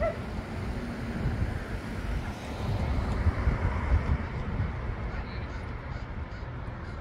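Street ambience: a low, gusting rumble of wind on the microphone mixed with traffic noise.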